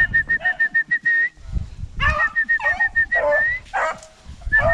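Rapid runs of short whistle notes, all at one pitch and each run ending in a longer rising note, repeated twice with a third starting near the end: a hunter whistling a rabbit hound back in. Hounds bark and yelp in between.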